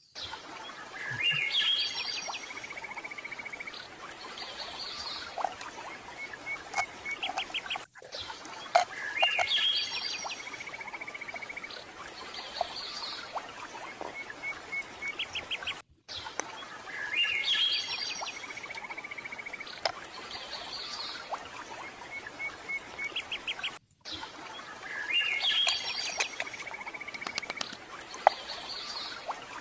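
Birdsong ambience with chirps and short trills over a soft steady hiss. It is a recording that loops every eight seconds, with a brief gap at each repeat.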